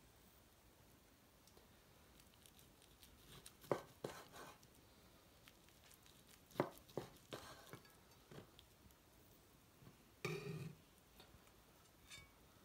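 Faint knocks of a kitchen knife coming down through a sushi roll onto a wooden cutting board: a couple about four seconds in, more near seven seconds. A short muffled scuffle comes about ten seconds in.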